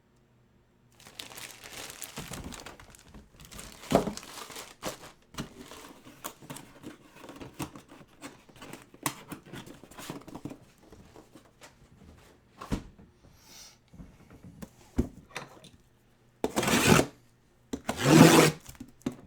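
Plastic card packaging crinkling and tearing as it is opened and peeled, with small clicks from cards being handled. There are two louder rips near the end.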